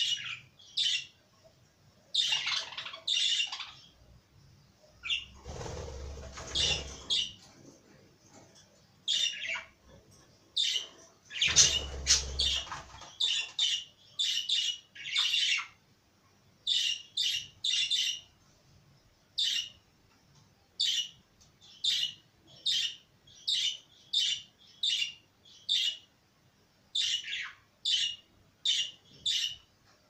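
Caged budgerigars chirping: a steady run of short, sharp high chirps, often in quick pairs or threes. Two longer, fuller bursts come about five and eleven seconds in.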